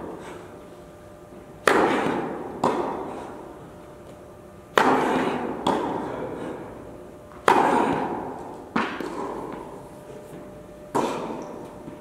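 Tennis balls struck with rackets during a rally: four sharp pops about three seconds apart, each followed by a softer knock about a second later. Each one rings out in the long echo of a large indoor tennis hall.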